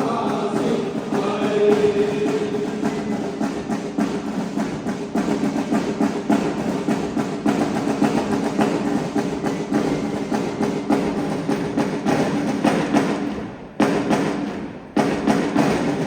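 Instrumental music with percussion keeping a steady beat under sustained chords; it breaks off abruptly twice near the end.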